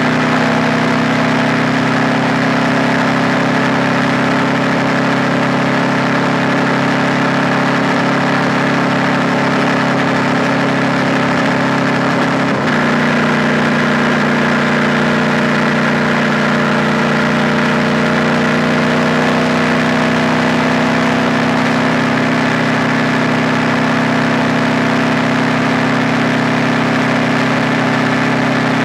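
KTM 890 Duke R's parallel-twin engine running at steady, low revs while the motorcycle is ridden slowly. About halfway there is a brief break in the engine note, after which it settles at a slightly different pitch.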